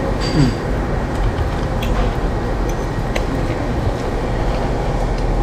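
Steady rushing restaurant background noise, with a few faint clinks of cutlery against a plate, one with a short metallic ring near the start.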